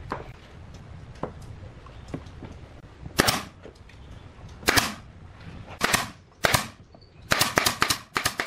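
Pneumatic nail gun firing nails into wood: sharp shots, each with a short puff of air, the first few spaced a second or so apart, then a quick run of about five near the end.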